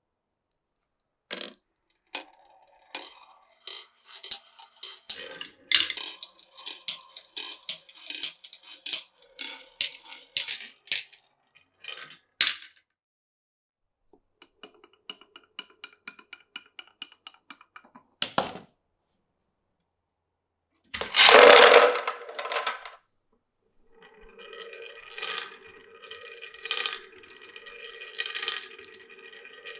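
Glass marbles clicking and clattering down a wooden marble run in quick irregular knocks, then a faint even patter of small ticks as a marble runs over a ridged track. A loud rattling burst comes about 21 seconds in, and a steady hum with clicks takes over near the end.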